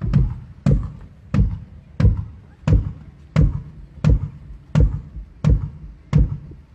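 A drum struck on its own at an even pace, about one hit every 0.7 s, ten hits in all, each a deep thud with a sharp attack that dies away quickly, played through the PA during a band's sound check.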